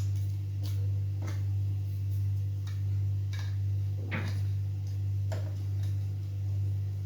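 Plastic parts of a cordless electric sweeper clicking and knocking as they are fitted together by hand, about six irregular light clicks, over a steady low electrical hum.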